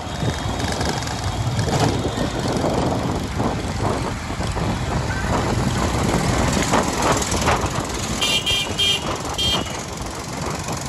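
Busy city road traffic heard from a moving vehicle among trucks and motorcycles, with a vehicle horn giving several short beeps near the end.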